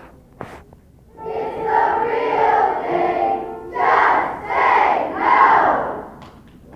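A large group of schoolchildren singing together in chorus with held notes, then shouting three loud calls together.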